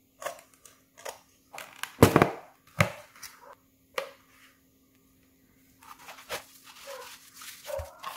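Cardboard box being slit open with a utility knife and its flaps pulled apart: a series of sharp knocks and scrapes, the loudest about two seconds in. In the last couple of seconds, foam and plastic wrapping rustles and crinkles as the product is drawn out.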